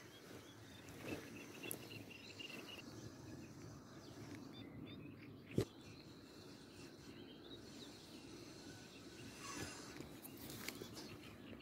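Faint outdoor ambience: a low steady rustle with a few bird chirps in the first few seconds, broken by a single sharp click about halfway through.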